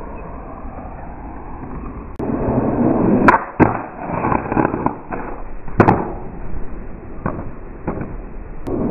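Skateboard wheels rolling on concrete, louder after about two seconds, with several sharp clacks of the board popping and hitting the ground and a ledge; the loudest clack comes about two-thirds of the way through.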